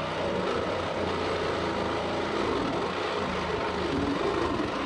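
Handheld power tool running steadily, a continuous noisy whir with no breaks.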